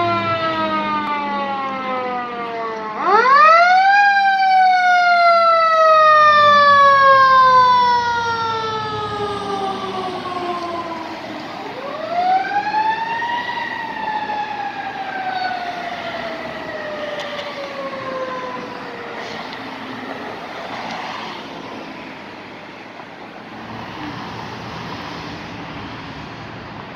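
Fire truck siren on a responding ladder truck: it is falling in pitch at first, then twice winds up quickly and slowly drops, the first wind-up about three seconds in and loudest, the second about twelve seconds in. It fades out in the second half, leaving passing traffic noise.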